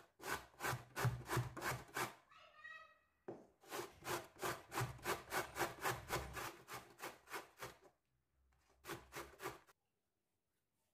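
Raw vegetable being grated on a stainless steel box grater standing on a wooden board: rhythmic rasping strokes, about three or four a second, in three runs with two short pauses.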